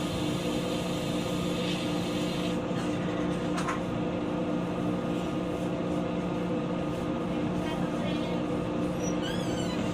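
Cabin of a JR West 223 series electric motor car standing at a station: a steady hum from its onboard electrical equipment, made of several unchanging tones. There is a faint click about three and a half seconds in and a faint high warbling near the end.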